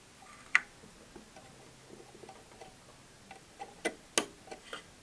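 Steel tweezers clicking and tapping against the metal thread guides of a Brother 1034D overlocker during threading. One click comes about half a second in, then a quick run of sharper clicks near the end.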